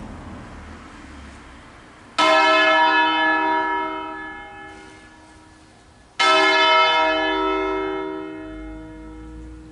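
Church bells from a six-bell 1885 Crespi (Crema) peal tuned in slightly sharp D-flat, struck twice about four seconds apart, each stroke ringing on and slowly dying away: the slow strokes of a funeral concerto tolled for the dead.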